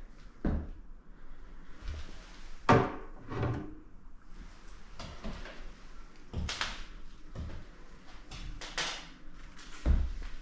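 A series of irregular wooden knocks, scrapes and creaks, about six in all, with the loudest just under three seconds in.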